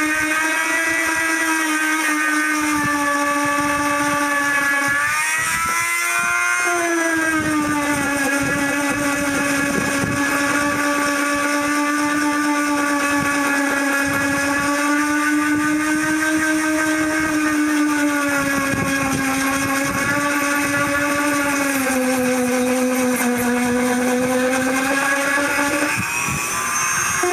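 Dremel rotary tool with a sanding bit running, sanding the dried skin side of a sheep pelt: a steady high motor whine whose pitch shifts a few times, most noticeably about six seconds in and again near the end.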